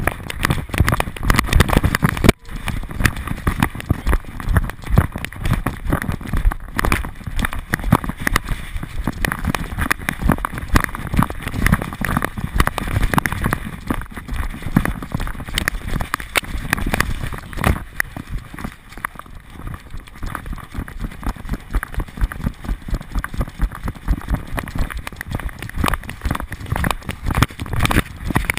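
Running dog's footfalls and the jolting of the GoPro strapped to it, heard up close as a dense, uneven run of thumps and knocks with each stride. There is a brief gap about two seconds in.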